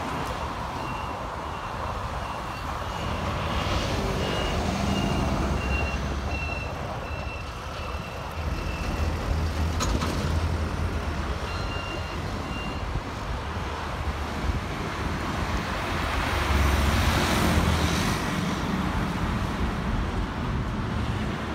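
Road traffic on a wide multi-lane road: vehicles passing with a low rumble that swells several times. A faint, high, evenly repeated beeping runs through the first half and returns briefly just after the middle.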